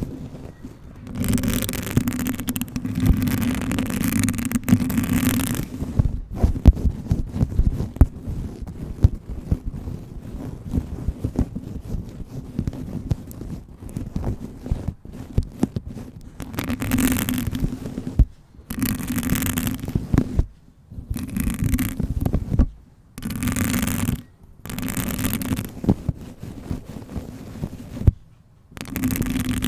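Long fingernails scratching and rubbing a fabric hair scrunchie close to the microphone, in bursts of one to four seconds with short pauses between. In the middle stretch the scratching turns to a quieter run of light scratches and clicks.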